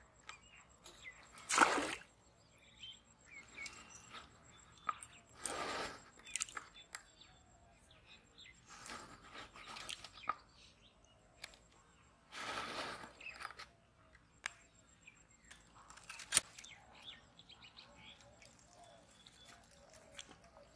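Outdoor ambience beside a pond: short rustling bursts every few seconds, with faint bird chirping.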